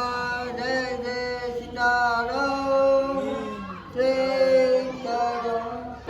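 A devotional chant sung in long held notes that shift pitch every second or two, with a short break about four seconds in.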